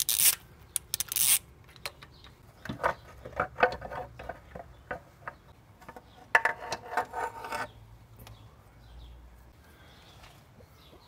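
Hand work on a 22R engine with its leak-down hose adapter in a spark plug hole: two short hisses at the start, then scattered metallic clicks and rattles of tools. A denser burst of rattling comes about six seconds in.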